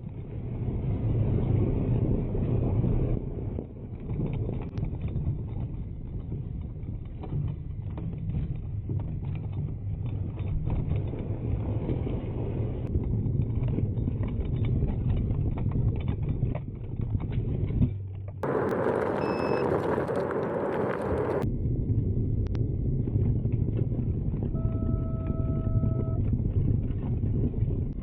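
Riding noise from an electric scooter going over a rough trail: a steady low rumble with many small rattles and knocks. About two-thirds of the way through, a different hissy noise briefly takes over, and a short two-tone beep sounds near the end.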